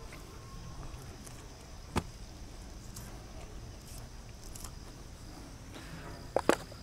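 Rabbit carcass's feet being cut off at the ankle joints: a single sharp snap about two seconds in and two quick clicks near the end, over a faint steady high-pitched hum.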